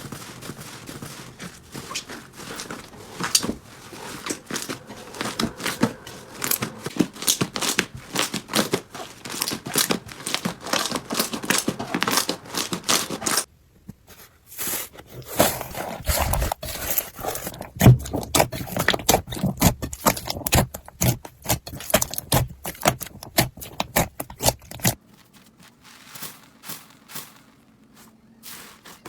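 Slime being squeezed, poked and stretched by hand, giving dense runs of crackling clicks and pops. The sound breaks off briefly about halfway through and turns quieter and sparser near the end.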